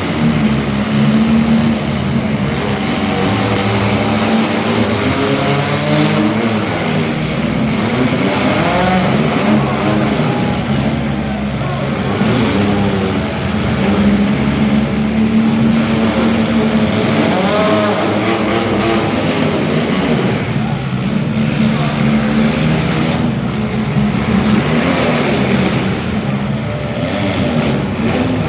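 Several demolition derby cars' engines running and revving at once, their pitch rising and falling as the cars accelerate and back off.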